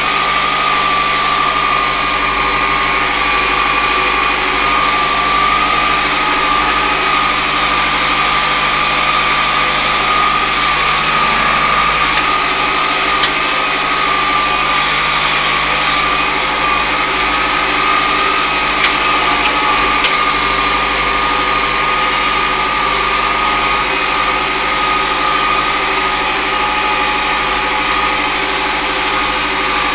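Deutz-Fahr M410 tractor engine running steadily under way, heard from inside the cab, with a constant high whine over the engine note.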